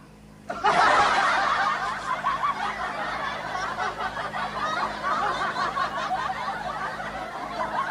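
Several people laughing and snickering together. The laughter starts abruptly about half a second in and keeps on steadily.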